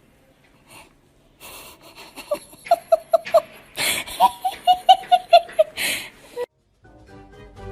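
A baby laughing in a run of quick, high-pitched bursts with wheezy breaths between them, for about four seconds; music begins near the end.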